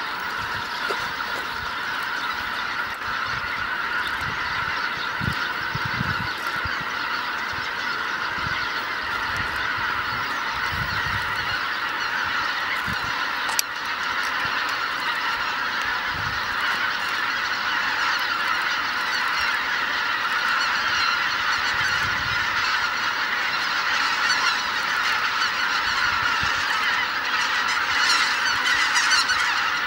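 A huge flock of greater white-fronted geese honking as they lift off the lake for their dawn flight, a dense, unbroken chorus of many overlapping calls that swells slightly toward the end. A single sharp click comes about halfway through.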